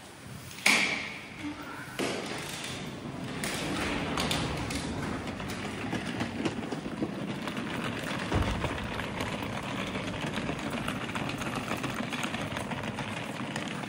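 A loud bang with a short ringing tail about a second in, then rolling suitcase wheels rattling steadily over paving stones.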